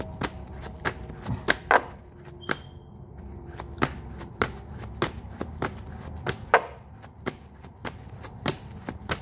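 Tarot deck being shuffled by hand: a run of sharp, irregular card slaps and clicks, about two or three a second.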